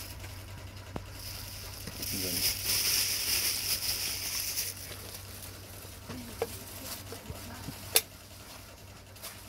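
A steady high hiss that swells about two seconds in and cuts off just before the five-second mark, over a constant low hum, with a single sharp click near the end.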